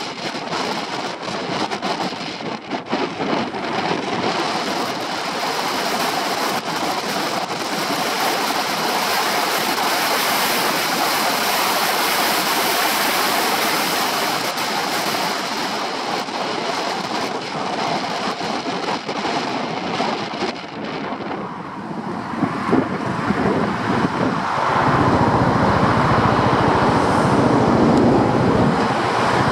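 Heavy wind buffeting on a shoulder-mounted microphone while riding a Honda PCX 125 scooter at road speed, covering the engine. Toward the end the wind noise drops as the scooter slows, and the low sound of its single-cylinder engine and the traffic comes through more.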